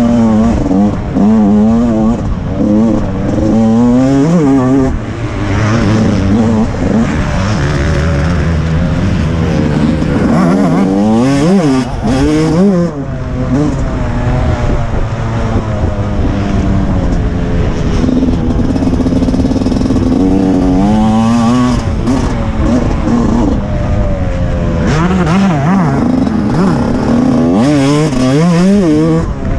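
TM 125 MX two-stroke motocross engine revving hard, its pitch climbing and dropping again and again as the bike accelerates, shifts and backs off through the turns.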